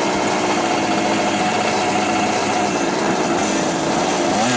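Moped engines running steadily at low revs as the bikes roll slowly at a drag-racing start area.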